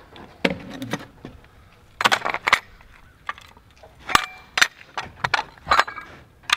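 Irregular sharp knocks and clinks of hand tools and lumber being handled and set down on top of a concrete-form wall, with a small cluster about two seconds in and several more single knocks later on.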